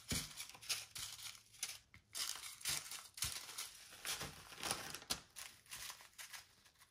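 Small plastic zip-top bags of diamond painting drills crinkling and rustling in irregular handfuls as they are picked up and shuffled around by hand.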